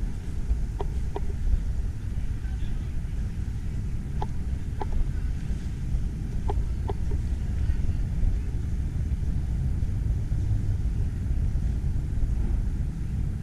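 Outdoor ambience: a steady low rumble, with a few faint, short clicks scattered through it.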